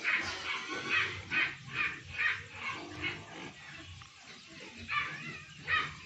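A dog yelping and barking in short, repeated calls, dropping off in the middle and starting again near the end.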